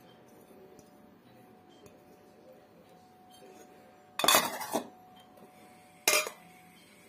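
Small stainless steel bowls clattering as they are picked up off a wooden table: a jangling metal clatter lasting about half a second, a little after four seconds in, then a shorter clink about two seconds later.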